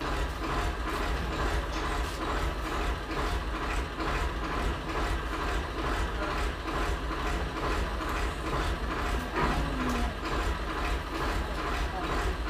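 A machine running steadily: a deep hum with a fast, even beat, starting abruptly.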